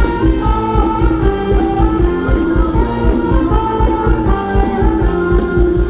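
A live band playing Thai ramwong dance music, with a singer over a steady beat.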